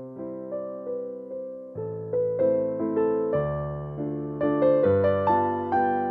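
Background music: a gentle electric piano playing chords with a melody over them.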